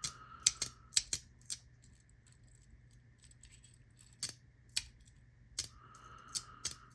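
Small metal parts of a fidget toy clicking and snapping together, held by a strong magnet: about a dozen sharp clicks, a quick cluster in the first second and a half and another from about four seconds in, with a brief metallic ring near the start and near the end.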